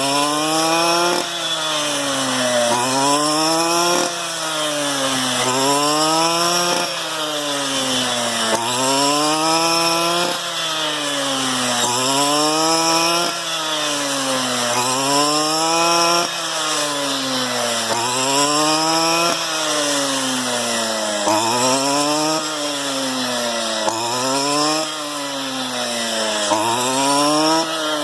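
STIHL FR 230 backpack brush cutter's two-stroke engine running hard, its pitch swinging up and down about every second and a half as it cuts through rice stalks in repeated sweeps.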